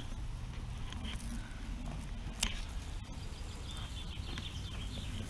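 Low-tack masking tape being peeled slowly off the sand-textured gloss paint of a narrowboat's steel gunwale: faint ticks as it lifts, with one sharper click about two and a half seconds in.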